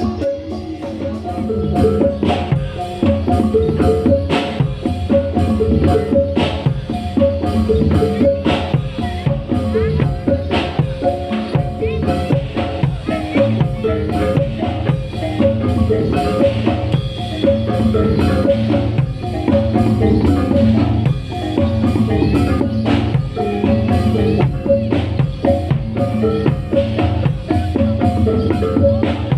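Javanese reog percussion music: tuned metal gongs or bells playing a repeating pattern over steady drumming, without a break.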